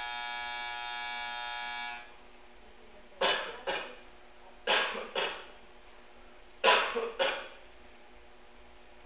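An electric buzzer sounding steadily, cutting off about two seconds in. Then come three pairs of short, sharp noises, evenly spaced and louder than the buzzer.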